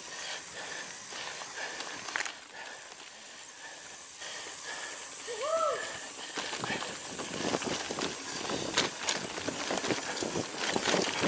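Mountain bike riding a dirt and leaf-litter trail: tyres crunching and the bike rattling over bumps. The clatter builds and grows louder from about six seconds in as the bike speeds up. A short rising-and-falling whistle sounds a little before the middle.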